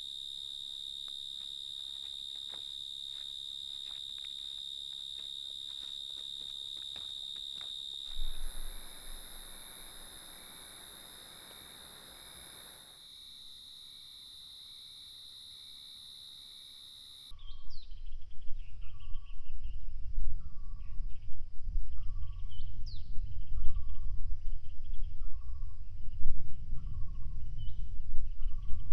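Insects trilling with a steady high tone, the sound shifting at a couple of cuts. Then, over the last dozen seconds, wind gusting on the microphone with a short falling chirp repeating about every second and a half.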